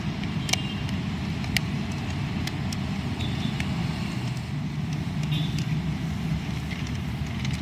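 Hard plastic parts of a transforming toy car clicking as they are pressed and fitted together: half a dozen short, sharp clicks spread out over a steady low background rumble.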